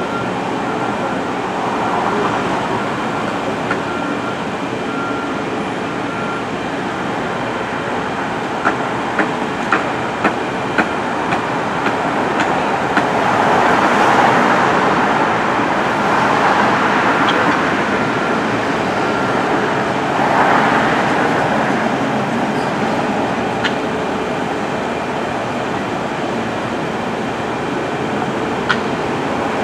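Disneyland Railroad train rolling along, a steady rumble and rattle, with a quick run of sharp clicks about a third of the way in, typical of wheels crossing rail joints.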